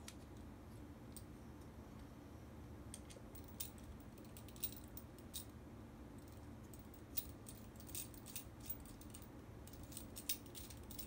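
Faint, irregular small clicks and taps of hard plastic and metal parts being handled: a motorcycle dashcam's anti-theft bracket and its mounting screw being fitted and tried.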